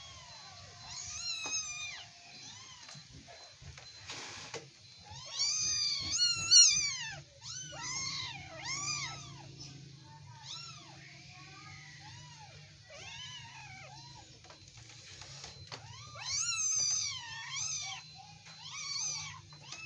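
Kittens mewing over and over while play-wrestling, a string of short, high-pitched mews that rise and fall, loudest about six seconds in and again near the end.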